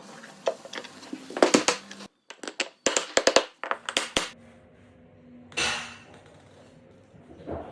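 Sharp knocks and clicks of carpentry work, with a quick run of them in the middle and a short hissing burst near the end.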